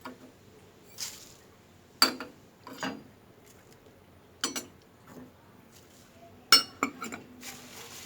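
Kitchen dishes and utensils clinking and knocking: a series of separate sharp clinks, the loudest about two seconds in and again about six and a half seconds in, with a quick double knock just after the second.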